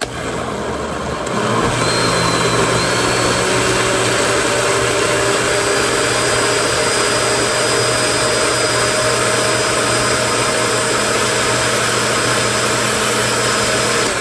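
An old countertop blender, about 30 years old, switches on and runs steadily, blending a thick mixture of eggs, cheese, cottage cheese and yogurt. Its motor comes up to full speed within about two seconds, then holds a loud, steady whirring hum with a faint high whine.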